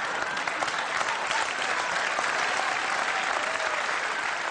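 Studio audience applauding: dense, steady clapping from many hands.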